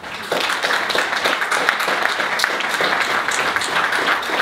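Audience applauding: many people clapping densely and steadily, starting about a third of a second in.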